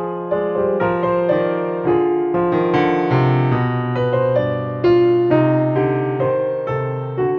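Background music played on piano: a melody of single notes and chords, a new note about every half second.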